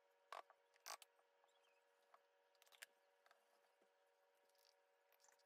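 Very faint scrapes and light knocks of a silicone spatula stirring cornbread batter in a glass bowl, the two clearest in the first second, over a low steady hum.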